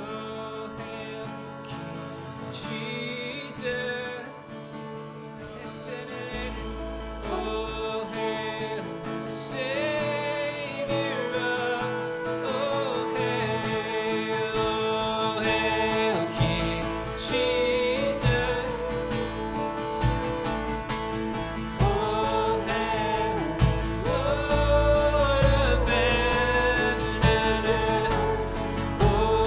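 Worship band music with a voice singing over it. It builds in loudness, with a fuller low end from about halfway through.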